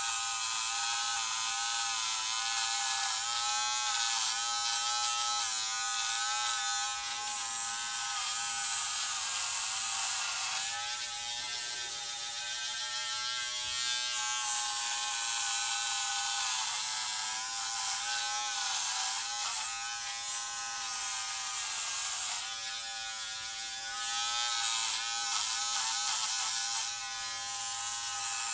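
Braun XT5 electric trimmer buzzing steadily as it is run over the scalp, cutting short hair, its pitch wavering slightly as it moves.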